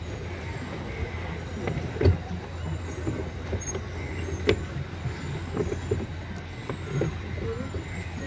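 Pedal boat under way: a steady low rumble from its pedal drive and paddle wheel in the water, with a few sharp knocks, the loudest about two and four and a half seconds in.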